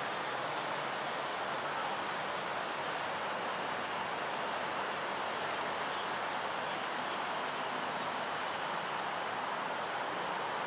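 Steady outdoor ambience: a constant high-pitched insect drone over an even background hiss, with no distinct events.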